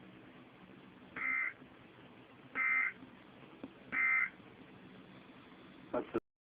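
Emergency Alert System end-of-message signal: three short bursts of digital data tones, about a second and a half apart, closing the broadcast warning.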